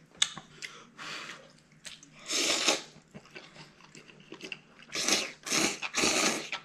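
A person loudly slurping soupy noodles, drawing them in with rushing sucks: one about two seconds in, then three in quick succession near the end. Softer chewing and small clicks come between the slurps.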